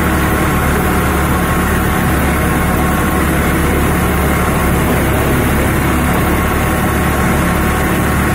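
Power-driven paddy thresher running steadily under load as rice sheaves are fed into its drum: a constant mechanical drone with a low engine hum underneath.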